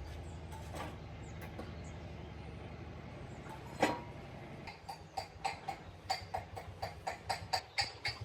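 Horse hooves clip-clopping in an even walking rhythm, about two to three steps a second, starting about halfway through. Before that there is a steady low rumble with a single sharp knock.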